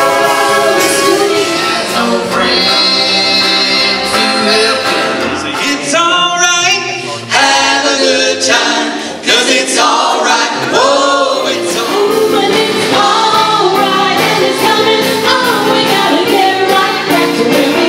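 Vocal groups singing in harmony with a live band of electric guitars and drums, in short snippets of different songs that change abruptly a few times.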